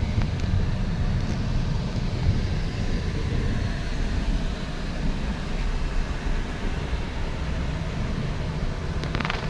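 Steady low rumble of a passenger train, heard from inside the coach, with a brief higher rattle near the end.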